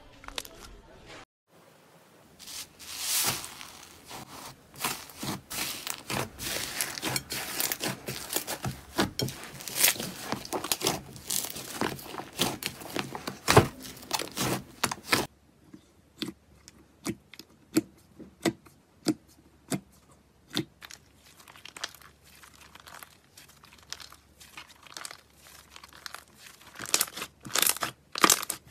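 Hands squishing and kneading slime, giving a dense run of crackles and pops, then sparser separate clicks and pops from about halfway, with a closer cluster near the end.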